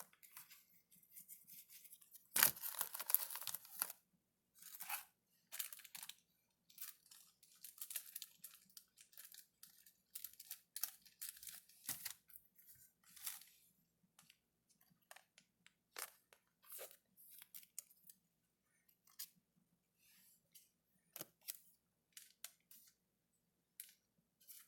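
Baseball trading cards and their foil pack wrappers being handled: scattered short rustles, slides and taps of card stock and wrapper, with one longer, louder rustle about two and a half seconds in.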